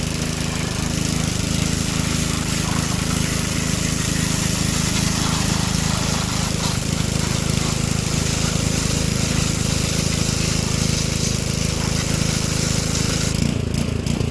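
A motor running steadily, with a low hum and a constant rushing noise.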